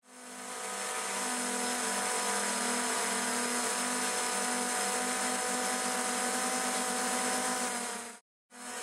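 Electric motors and propellers of a multirotor drone in flight, heard close up as a steady high whine over a wide rushing hiss. The sound fades in at the start and drops out abruptly for a moment near the end before carrying on.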